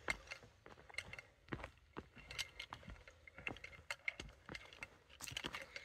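Footsteps on a rocky trail: a faint, irregular run of short clicks and knocks, with a light clinking of carried gear.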